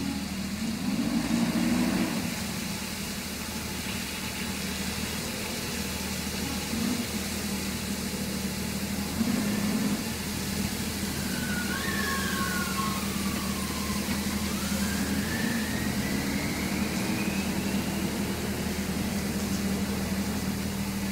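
Garbage truck engine running steadily at low speed while rolling through a wheel wash, over the hiss of water jets spraying its wheels and undercarriage. A faint whistling tone dips and then rises about halfway through.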